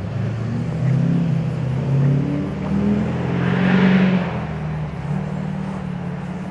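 Engines of parked emergency vehicles idling, a steady low drone with slightly shifting pitch. A hiss swells and fades about three to four seconds in.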